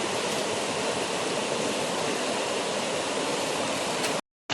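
Fast-flowing river water rushing steadily, running high and swift, which the speaker links to water being released from a dam upstream. The sound drops out suddenly near the end.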